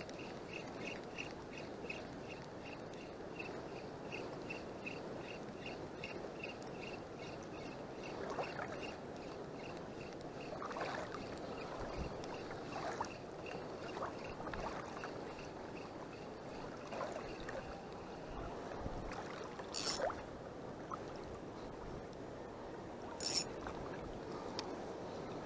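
Spinning reel being cranked on a retrieve, giving a regular ticking about three to four times a second that stops a little after two thirds of the way through. Under it runs the steady wash of shallow sea water, and near the end come two short sharp sounds as the line is handled.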